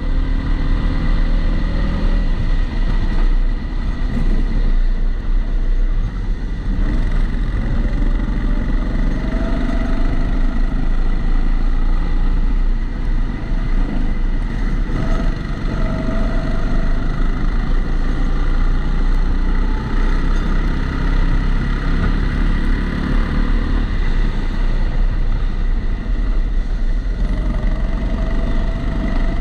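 Rental kart engine running under load as heard from onboard, its pitch rising and falling with the throttle through the corners. A steady high tone sits over it throughout, which the uploader puts down to the GoPro being in a housing.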